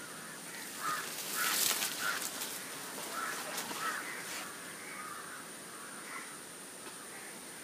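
Birds giving short, repeated calls from the trees along the canal, with a brief rustling hiss about one and a half seconds in. A faint steady high-pitched tone runs underneath.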